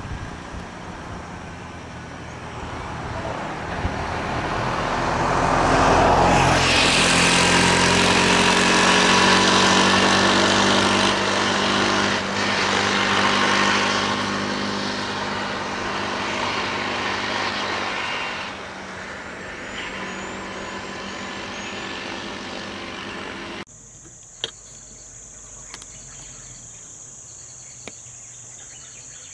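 Road vehicles driving past close by, their engines swelling to the loudest point about six to ten seconds in and fading over the next dozen seconds. After a sudden cut near the end, a steady high-pitched insect drone with a few light knocks.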